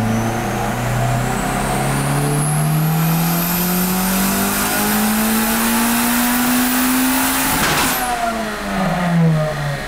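Turbocharged Honda Civic VTi four-cylinder engine making a full-throttle pull in fourth gear, its revs rising steadily for about seven and a half seconds with a high whine climbing alongside. It cuts off abruptly with a short burst of noise near the top, and the revs fall away. This is a test pull during tuning.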